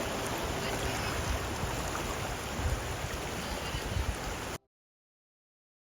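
River water rushing, a steady noise that cuts off suddenly to silence about four and a half seconds in.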